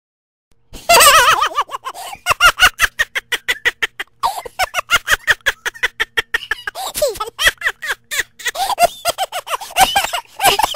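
High-pitched cackling laughter in rapid bursts of several a second, starting abruptly about a second in.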